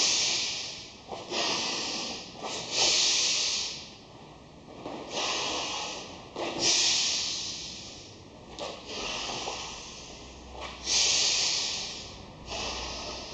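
Ujjayi breathing, the yogic 'snoring' breath: slow inhales and exhales drawn through a narrowed throat, each a rough hiss lasting a second or two, following one another in a steady run of about seven or eight breaths.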